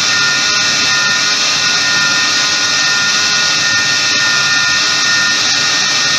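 Electric mixer running at a steady speed with a high, even whine, beating cake batter.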